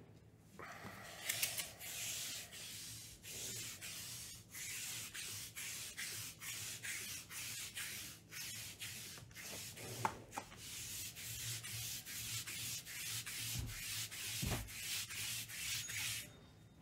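Rapid rhythmic rubbing or scratching strokes on a surface, about two or three a second, with a few light knocks among them.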